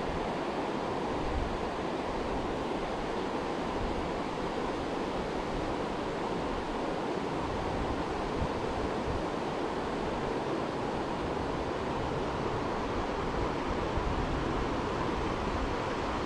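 Steady rush of flowing river water mixed with wind, which buffets the microphone in uneven low rumbles.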